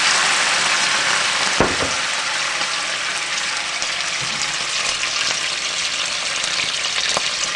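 White wine deglazing a hot skillet of butter and pan drippings: a loud sizzle that slowly dies down as the wine lifts the browned bits, with a utensil knocking against the pan about a second and a half in.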